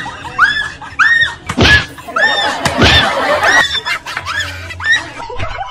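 A woman shrieking in fright over and over, in short high-pitched cries about two a second, with two louder, rougher screams near the middle.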